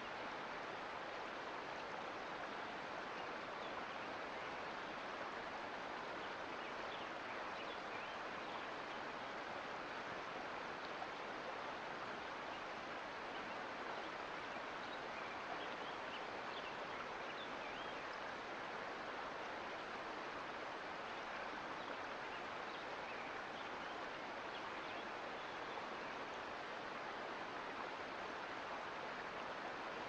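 Mountain creek flowing: a steady rush of water, with faint small splashes here and there.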